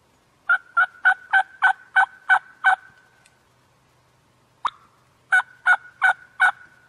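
Wild turkey yelping: a run of eight quick yelps, a single sharp click about four seconds later, then four more yelps.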